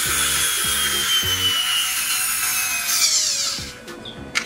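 Background music with a regular beat of low notes under a steady hissing, whooshing layer, with a slow falling sweep; it dips briefly near the end before coming back in.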